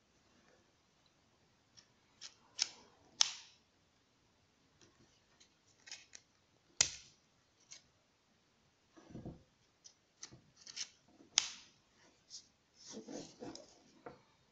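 Hard plastic clicks and rubs from a Narex EBU 125-6 angle grinder and its clip-on orange vent filter being handled and fitted. Irregular sharp clicks, the loudest about seven seconds in, with short rubbing noises between; the motor is not running.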